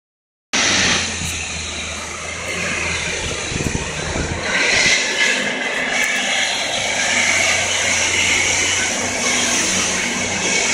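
City street traffic: vehicle engines running and passing, a steady urban din with a low engine hum in the first few seconds.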